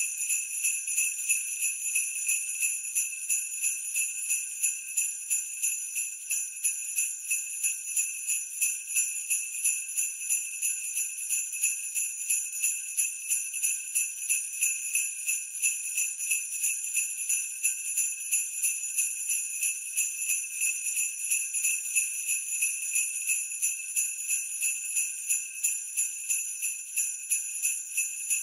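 Sleigh bells jingling, shaken in a steady, even rhythm of about two shakes a second.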